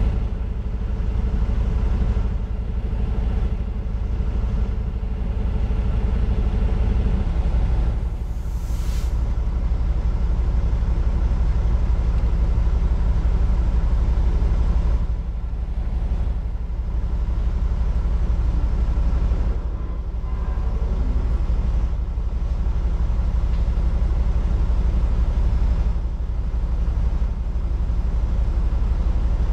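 Heavy-haul truck's diesel engine running under way, a steady low rumble whose note changes about seven seconds in. A short hiss comes about eight seconds in.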